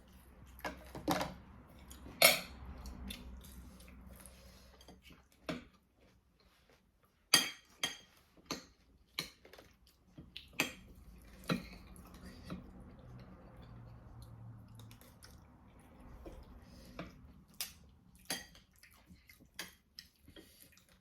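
Cutlery and dishes clinking during a meal: scattered sharp clinks at an uneven pace, the loudest about two seconds in and again about seven seconds in.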